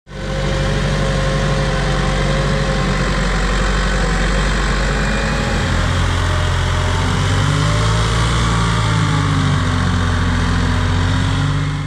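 Case IH 75JXM tractor's diesel engine running steadily under load, pulling a loaded earth scraper through soil. Its note shifts about halfway through.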